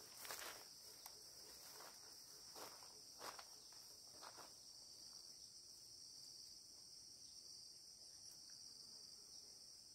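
Faint, steady high-pitched insect chorus, with a few soft knocks or steps in the first half.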